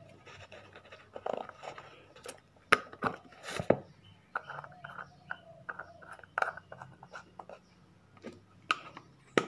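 Irregular clicks, knocks and light scrapes as a leather shoe and a small plastic jar of leather cream are handled and turned over in the hands, with a low hum beneath.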